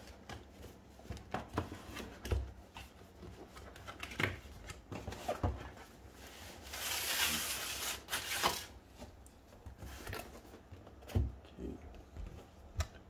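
Cardboard graphics card box being handled: the end flap opened and the black inner box slid out of the printed outer box with a scraping rustle about seven seconds in, among scattered taps and knocks of cardboard on a wooden desk.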